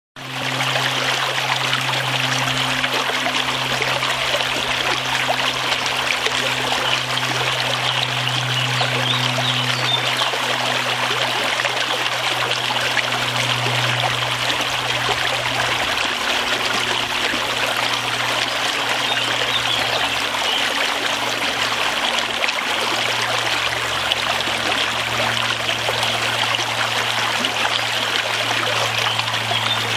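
Running water, a steady even rush like a flowing stream spilling over rocks, with a low steady hum beneath it.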